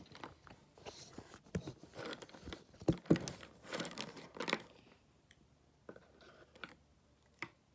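Handling noise: irregular rustles and knocks as a phone camera is moved and set down on a table among markers and a fabric pencil pouch. The loudest knock comes about three seconds in, and the sounds thin out to a few faint ticks over the last few seconds.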